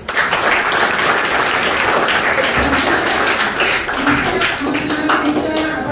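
Audience applauding, the clapping breaking out suddenly and holding steady, with a woman's voice beginning over it near the end.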